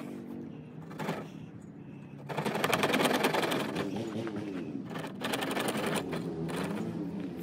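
Knife blade sawing a notch into a tulip poplar hand-drill fireboard: a rapid rasping of short strokes, in two spells, the first starting a little over two seconds in and the second about five seconds in.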